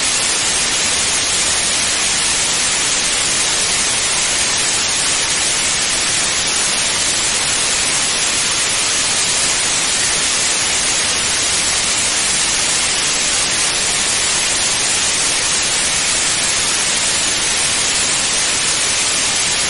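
Television static: a loud, steady, even hiss with no tones or breaks, heaviest in the treble.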